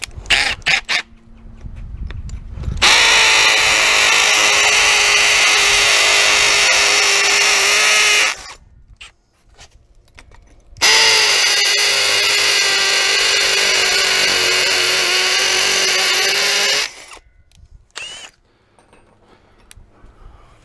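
Cordless drill with a half-inch masonry bit boring anchor holes into a brick pillar: two long steady runs of about five and six seconds, with a short pause between them.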